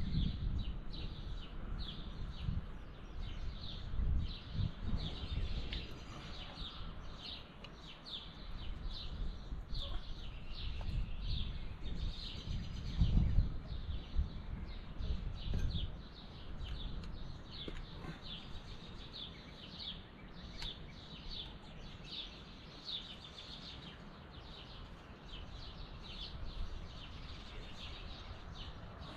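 Small birds chirping over and over with short, quick high chirps, the song going on steadily. Irregular low knocks and rustles sound underneath, with the loudest thump about thirteen seconds in.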